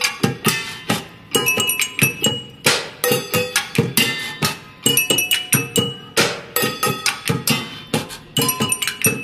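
Instrumental break of a Turkish folk-pop protest song: a dense, driving rhythm of drum and hand-percussion strikes, several a second, with some strikes ringing briefly at a high pitch.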